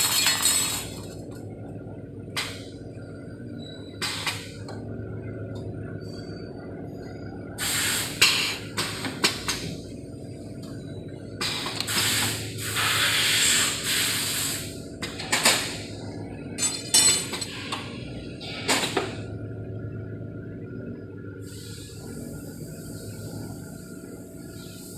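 R3D16 CNC rod-and-tube bending machine working: a steady motor hum, broken by a series of short, sharp noisy bursts, one of them lasting about three seconds. A steady hiss sets in a few seconds before the end.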